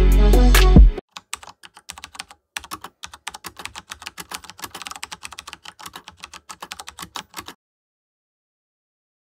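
Background music cuts off about a second in, followed by about six seconds of rapid, irregular keyboard typing clicks.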